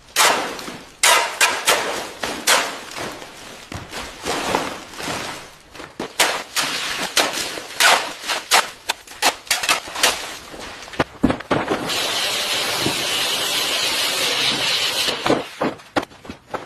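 Building-work noise: a rapid, irregular run of knocks and clatters, then a steady high hiss lasting about three seconds from about twelve seconds in, followed by more knocks.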